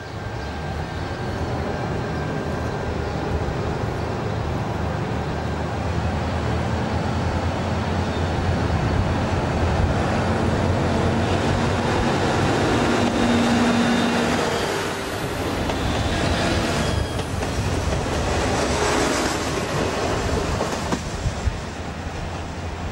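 Metre-gauge diesel railcar approaching and passing close by, its engine running and wheels clattering over rail joints. It is loudest about halfway through as it goes past, with sharp clicks of the wheels over joints near the end.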